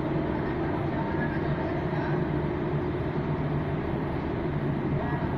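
Steady low engine rumble, even and unchanging throughout.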